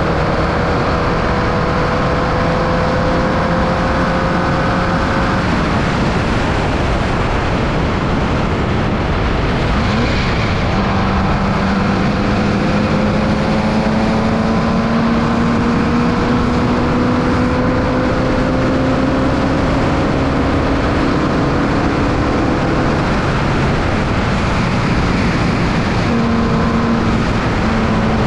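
Formula Vee race car's 1200cc Volkswagen air-cooled flat-four engine running hard, heard onboard under heavy wind noise. The engine note climbs slowly and drops away about five seconds in, again about ten seconds in, and near the end.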